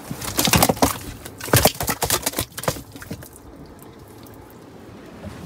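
Water splashing and sloshing in a quick, irregular run of splashes for about three seconds, then settling to a low steady wash.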